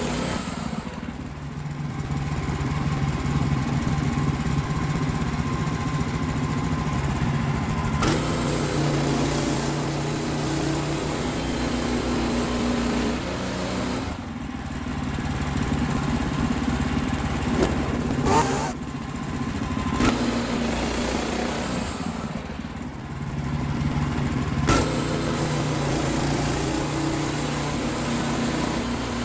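WoodMizer LX55 portable band sawmill running while it cuts a poplar log into slabs. Its engine holds a steady hum that eases and picks back up a few times, with a few short sharp noises along the way.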